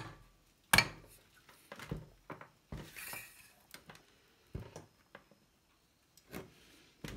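Knocks and light clatter from handling an electric water pump motor on a workbench while its fan cover is fitted: one sharp knock just under a second in, then lighter taps, clinks and a brief scrape.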